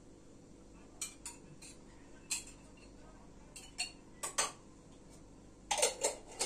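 Kitchen utensil clinks and taps: a spoon knocking against a metal pizza pan and dishes while sauce is spread on the dough, as a handful of separate light clicks with a small cluster near the end.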